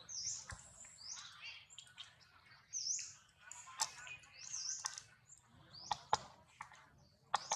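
Repeated short, high-pitched chirping calls, each rising and falling, with a few sharp clicks about two-thirds of the way in and again near the end.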